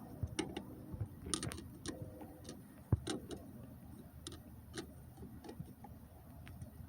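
Light metallic clicks and taps of tools and small parts being handled on a 4L60E automatic transmission under rebuild, scattered and irregular, with one sharper click about three seconds in.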